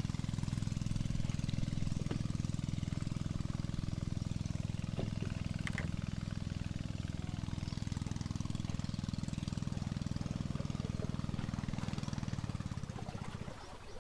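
Small boat engine running steadily at a low, even pitch, stopping near the end, with a few faint clicks from handling fishing tackle.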